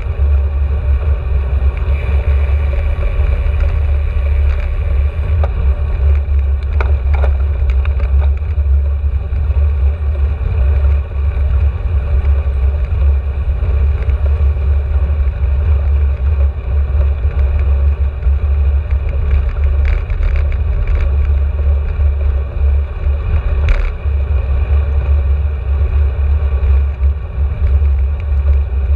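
Wind buffeting the microphone of a camera carried on a moving bicycle: a steady low rumble, with a few brief knocks scattered through it.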